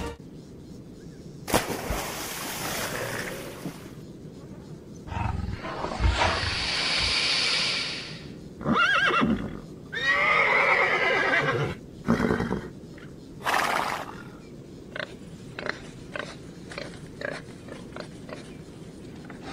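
A run of wild-animal sounds: a zebra gives a whinnying, braying call about ten seconds in, set among several sudden noisy bursts. Near the end comes a string of short sharp sounds.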